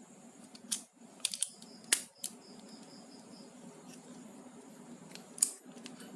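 A folding bike multi-tool being handled: half a dozen sharp, irregular clicks and light knocks as its metal hex keys and bits are moved against the hard plastic body.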